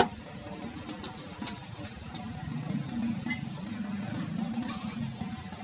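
A ladle stirring a thick coconut-milk dessert in a stainless steel pot, with a few faint clicks and scrapes over a low steady hum.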